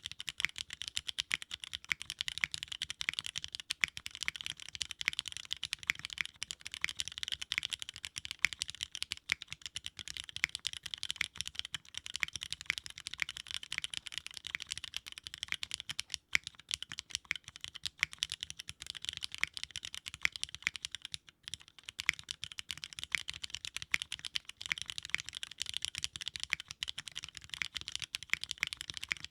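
Steady fast typing on a custom 65% mechanical keyboard with Cherry MX Black linear switches in an aluminium plate, with no foam in the case and GMK keycaps. Dense keystroke clacks run without a break except for two brief pauses, around a third and two thirds of the way through.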